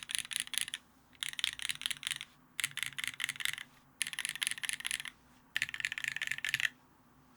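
Typing on a Keycult No.2 rev.1 custom mechanical keyboard with lubed, filmed vintage black Cherry linear switches in a brass plate and GMK keycaps. Five quick runs of keystrokes about a second each, with short pauses between them. The typing stops near the end.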